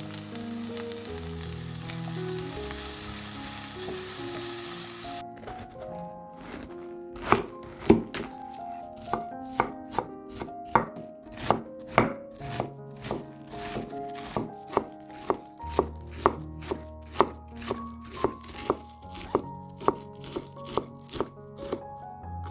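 Food sizzling in a pan for the first five seconds or so, then a knife chopping vegetables on a cutting board in steady strokes, about two a second. Soft background music plays underneath.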